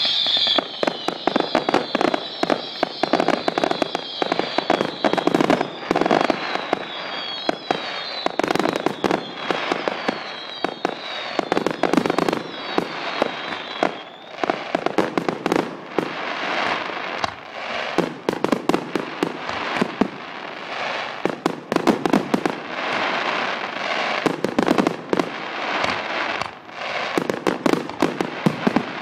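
Fireworks display: a rapid, continuous run of bangs from bursting shells and dense crackling. A high whistle sounds over roughly the first half, repeatedly falling slightly in pitch.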